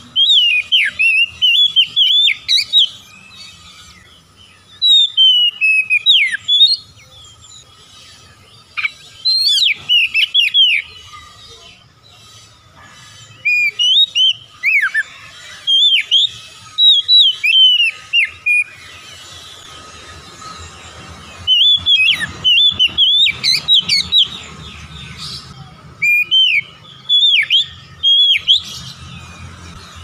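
Oriental magpie-robin singing: bursts of quick, sweeping whistled notes a second or two long, repeated every few seconds with short pauses between.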